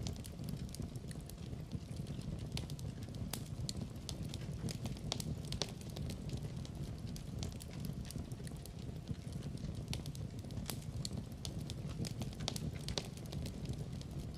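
Wood fire in a fireplace crackling, with frequent irregular sharp pops over a steady low rumble of the burning fire.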